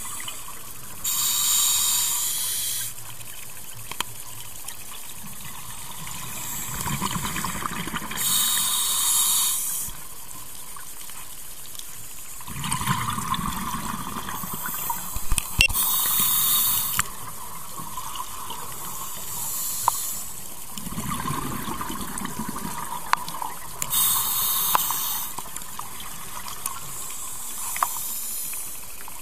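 Scuba diver breathing through a regulator underwater: a slow cycle of inhalation hiss followed by a loud burst of bubbling exhaled air, four bubble bursts about seven to eight seconds apart.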